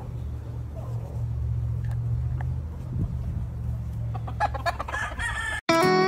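A gamecock crows once near the end, a drawn-out call that is cut off abruptly, over a steady low rumble.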